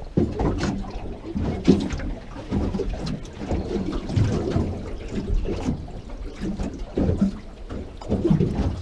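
Water lapping and slapping irregularly against the hull of a small fishing boat.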